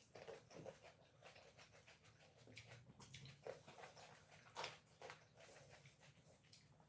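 Faint, irregular wet chewing and mouth smacks of people eating grapes fast.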